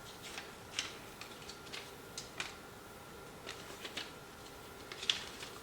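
Pages of a paper instruction booklet being handled and turned: scattered light rustles and soft clicks, each brief.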